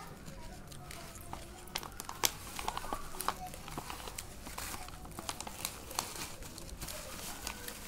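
Plastic packaging pouch crinkling and crackling as it is handled and opened, with a run of sharp, irregular crackles.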